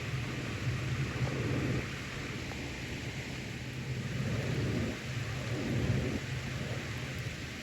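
Thunderstorm: steady rain with low rolling thunder that swells about a second in and again between about four and six seconds in.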